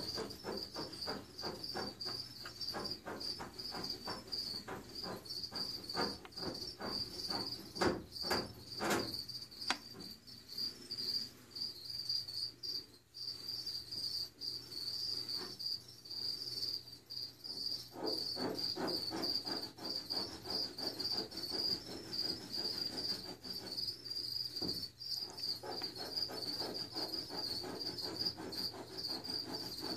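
Crickets chirping, a steady high trill, with a lower rhythmic pulsing underneath for much of the time.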